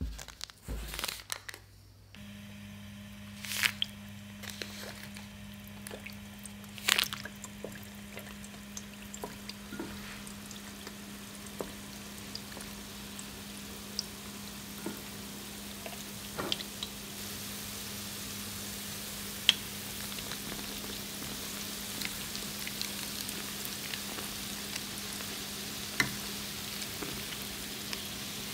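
Churro dough on parchment paper handled and lowered into hot cooking oil. After a few light taps, the oil starts to sizzle steadily about two seconds in, with scattered sharp pops and crackles, growing a little louder in the second half.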